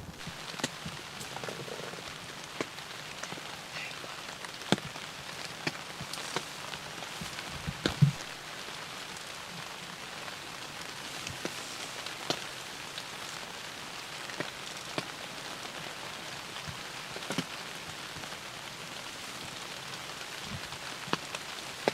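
Hard rain falling steadily, with many sharp drip ticks scattered through it, heard from inside a hunting blind. A single low thump comes about eight seconds in.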